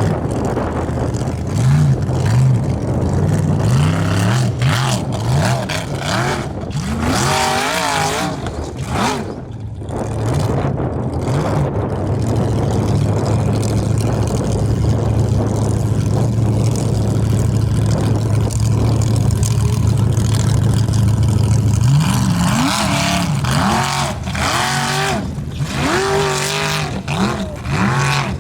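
Formula offroad race truck's engine revving hard, its pitch rising and falling in repeated bursts. About twelve seconds in it holds a steady pitch for roughly ten seconds, then goes back to revving up and down in bursts near the end.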